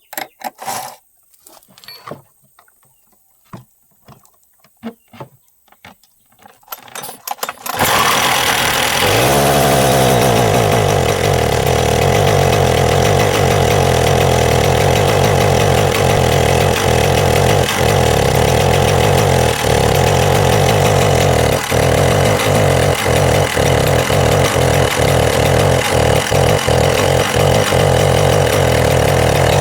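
Husqvarna 372XP two-stroke chainsaw engine: a few scattered clicks and knocks, then the engine starts about eight seconds in and runs steadily and loudly, with several brief dips in its sound in the second half.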